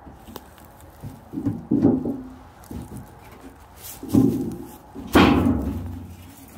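A square metal tin being handled and tipped toward the ground, giving three knocks and thumps with rattling in between: about a second and a half in, about four seconds in, and the loudest just after five seconds.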